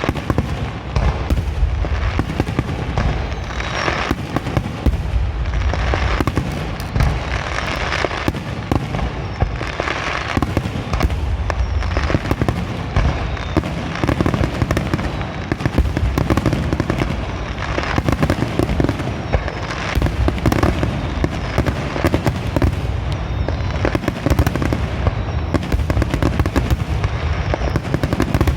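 Aerial fireworks finale: a dense, continuous barrage of shell bursts and crackling, the bangs overlapping with no pause between them.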